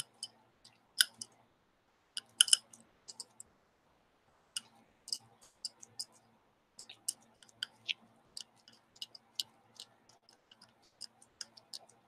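Irregular small clicks and sticky crackles from gloved fingers pressing and smooshing glue-and-sawdust putty into a metal belt buckle blank, some single, some in quick clusters, over a faint low hum.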